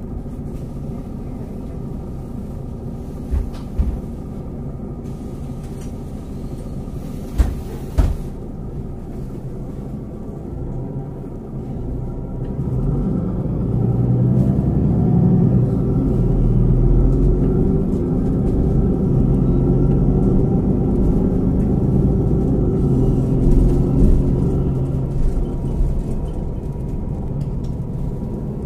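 City bus diesel engine rumbling at low revs, then pulling harder and louder from about twelve seconds in for roughly ten seconds before easing off. A few sharp knocks come in the first eight seconds.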